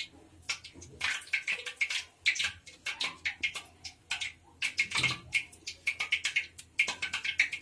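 Metal cookie cutters pressed and twisted through sesame-coated dough onto a wooden board: a quick, irregular run of short scratchy clicks and scrapes.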